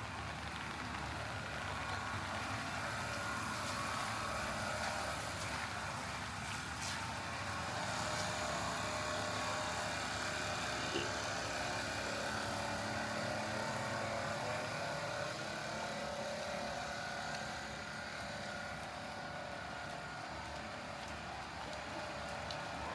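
Steady rain noise with a running vehicle engine, a low steady hum that grows stronger partway through.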